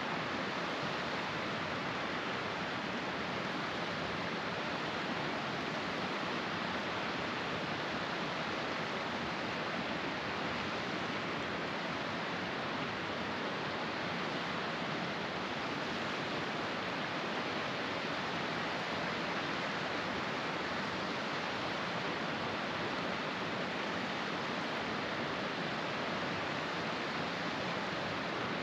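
Steady, even rush of a small mountain creek cascading among rocks.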